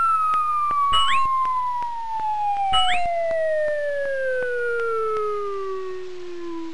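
Cartoon intro sound effect: a single whistle-like tone sliding steadily down in pitch. Two quick upward chirps come about a second in and again near three seconds, over faint rapid ticking, and the tone cuts off abruptly at the end.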